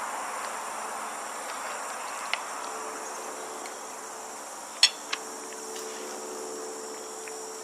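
Insects trilling steadily, with a few faint sharp clicks about two and five seconds in.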